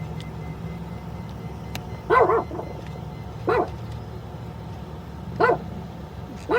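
Tone-tracer probe sounding a tone generator's warbling signal in four short chirps, about two, three and a half and five and a half seconds in and again at the end, over a steady low hum. The chirps come as the probe passes over the wire carrying the signal, tracing it through the wiring harness.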